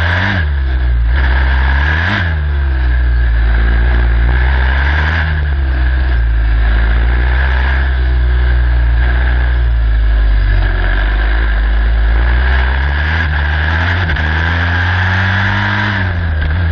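Onboard sound of the Joanneum Racing jr15 Formula Student car's turbocharged engine at racing pace: short rev blips near the start and about two seconds in, then the revs climb steadily through the gears and fall away sharply near the end as the car brakes.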